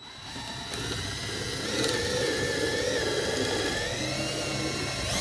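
Power drill boring into the mitred corner of a wooden frame, its motor running under load with a steady whir whose pitch wavers slightly as the bit cuts. It builds up over the first second.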